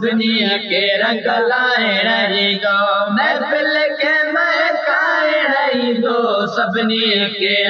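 Sindhi naat singing: a voice sings a long, wavering melodic passage over a steady low drone.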